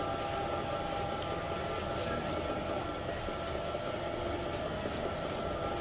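Small electric screw oil press running while it presses almonds for oil: a steady machine hum with a few held tones, unchanging throughout.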